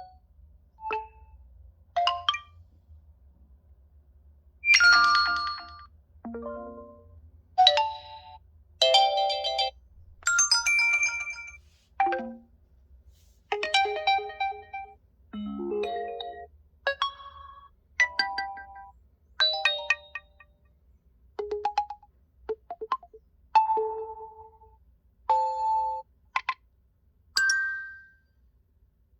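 A Realme 11 Pro+ smartphone's speaker playing a run of short preset electronic tones and chimes, one after another. There are about twenty of them, each a different short melodic sound lasting under a second or so, with brief gaps between.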